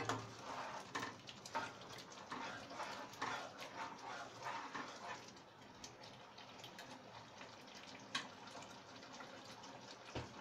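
Palak paneer koftas tipped off a steel plate into simmering gravy in a kadai: a run of soft plops and wet splashes over the first five seconds, then faint bubbling of the gravy with an odd click.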